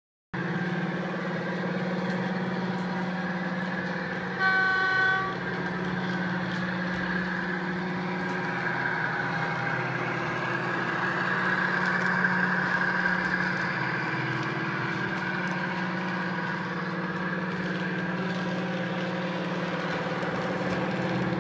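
Sound decoder in a model Class 55 Deltic diesel locomotive, playing its engine sound steadily through an onboard loudspeaker. A short horn blast sounds about four and a half seconds in.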